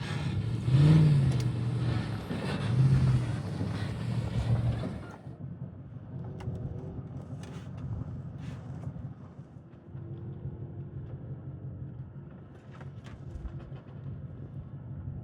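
Off-road race vehicle engine revving, rising in pitch twice in the first few seconds. About five seconds in, the sound drops abruptly to a quieter, duller engine rumble with scattered clicks.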